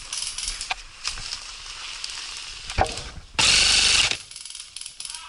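Airsoft electric gun firing a short full-auto burst: a loud, buzzing motor-and-gearbox rattle of under a second, about three and a half seconds in. Before it comes a steady hiss with scattered clicks.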